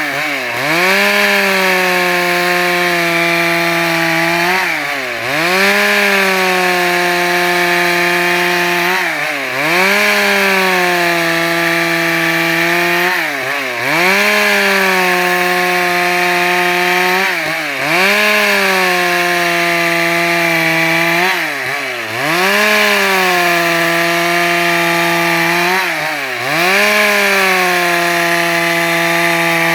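Stihl MS 382 two-stroke chainsaw running at high revs while sawing wood into planks. About every four seconds its engine pitch dips briefly and then climbs back, seven times in all.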